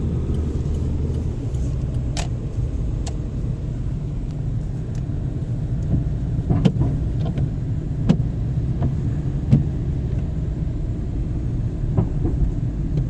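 Steady low rumble of a car's engine and tyres heard from inside the cabin while driving, with about six short, sharp clicks at uneven intervals.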